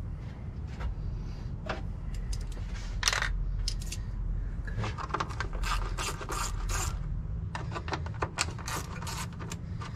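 A quarter-inch-drive ratchet with a 10 mm socket clicking as bolts are undone on a car's radiator fan assembly, with light metallic clinks. A few single clicks come early, then quick runs of ratchet clicks from about halfway through. A low steady rumble runs underneath.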